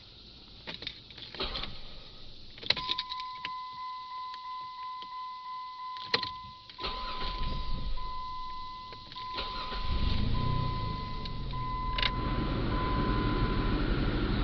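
Keys rattling and a few clicks, then a vehicle's electronic warning chime sounding as a steady string of even beeps, joined about two-thirds in by a steady low rumble that grows louder.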